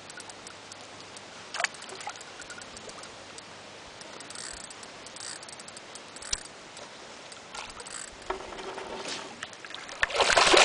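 Large hooked trairão (wolf fish) thrashing and splashing at the water's surface beside the boat, a loud burst of splashing near the end. Before it there is only faint water sound with a few small clicks.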